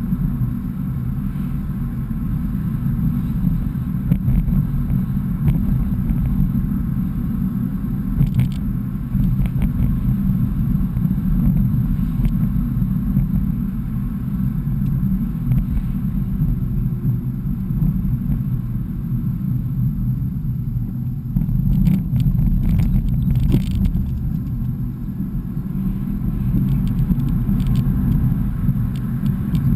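Steady low engine and road rumble heard from inside a BMW E46 driving at town speed, with a few faint clicks about a third of the way in and again about three quarters through.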